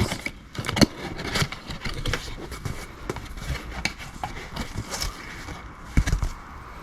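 Scattered clicks, light knocks and scraping from plastic ATV headlight assemblies being handled, with a sharper knock about a second in and another near the end.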